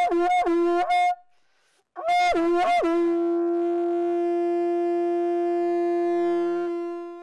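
Conch shell (shankha) blown as a ritual call opening Hindu morning worship: a run of quick pitch flicks, about three a second, stops about a second in; after a short silence it sounds again with two flicks and settles into a long steady blast that fades out near the end.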